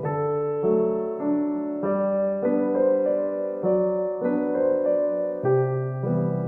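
Background music: a gentle electric piano tune, its notes and chords changing about every half second.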